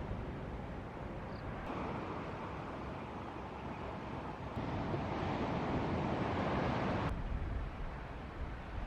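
Ocean surf and wind rushing over the microphone, a steady noisy wash. It changes abruptly about two, four and a half, and seven seconds in, and is loudest in the stretch between the last two changes.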